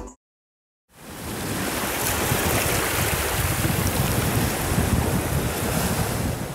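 Sea waves washing in a steady rush of surf, fading in after about a second of silence and fading out at the end.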